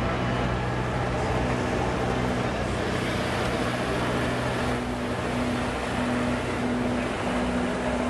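An engine running steadily at one speed: a low, even drone with a constant hum, over a wash of outdoor background noise.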